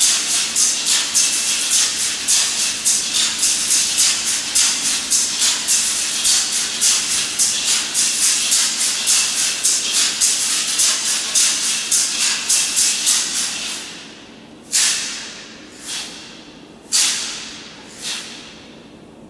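Percussion ensemble playing a fast, even pulse of hissing, shaker-like strokes, about four a second, that stops about fourteen seconds in. Then come four single hissing strokes, about a second apart, each dying away. A faint steady low hum runs underneath.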